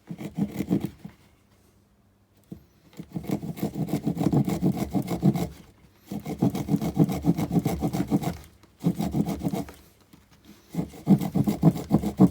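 Saw teeth on the spine of a Broc Tracker knife cutting a notch into green wood in quick back-and-forth strokes. The sawing comes in several runs of a few seconds with short pauses between, the longest about a second in.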